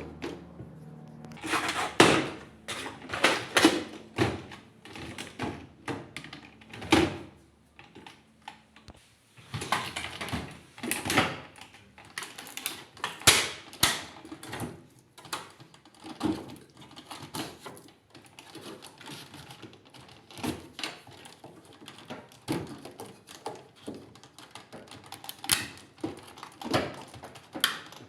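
Irregular clicks, taps and knocks of hard parts being handled on a washing machine, coming in clusters with short pauses between.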